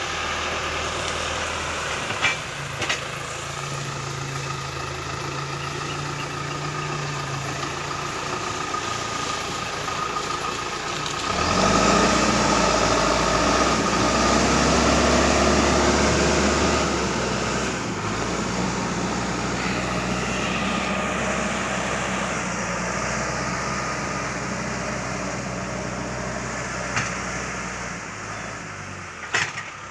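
John Deere 310E backhoe loader's diesel engine running steadily, then working harder and louder for about five seconds roughly a third of the way in before settling back. A few short knocks are heard now and then.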